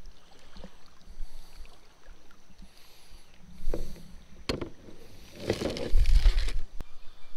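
Plastic sit-on-top kayak being handled on the water: a few sharp knocks of the paddle against the hull as it is laid down, then a louder rustling and handling noise about six seconds in.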